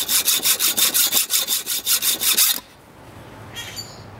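Hacksaw sawing quickly back and forth across a steel car coil spring, several strokes a second with a steady high ring from the blade, stopping about two and a half seconds in. The hardened spring steel barely takes a mark from the blade.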